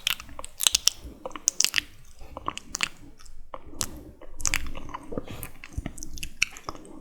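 Close-miked wet, sticky mouth sounds: irregular clicks and smacks of lips and saliva, several to the second.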